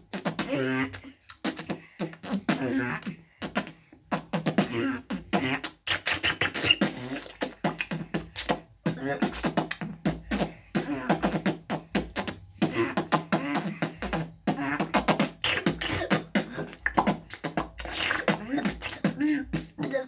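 A boy beatboxing solo: a fast, rhythmic run of percussive mouth sounds, clicks and drum-like hits, woven with hummed and sung pitched vocal sounds, broken by a few short pauses.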